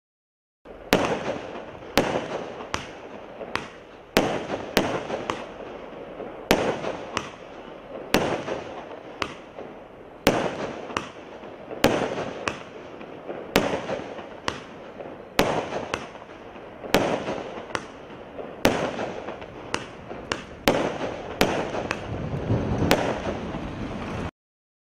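Bergs 'Light the Night!' 16-shot fireworks cake of 20–25 mm tubes firing straight up in sequence: sharp reports about every half second to a second, with crackling between them. The sound cuts off suddenly near the end.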